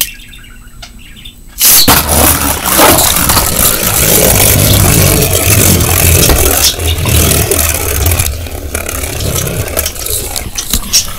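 A Beyblade Burst Sphenix top is ripped from a ripcord launcher with a sudden burst of noise a little under two seconds in. It then spins and scrapes loudly around a plastic Hypersphere stadium, dying down near the end.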